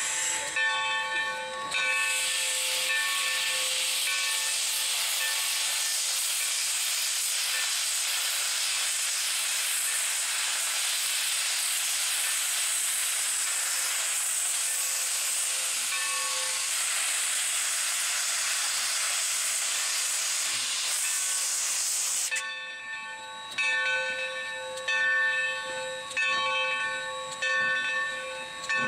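Steam locomotive blowing a loud, steady hiss of steam from its cylinder cocks as it starts to pull away; the hiss cuts off suddenly about twenty-two seconds in. Its bell rings in steady repeated strikes throughout, clearest at the start and after the hiss stops.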